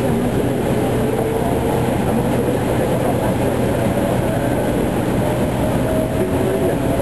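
Meitetsu 7000 series Panorama Car electric train running and gathering speed, heard from inside its front cabin: a steady rumble with a whine that slowly rises in pitch.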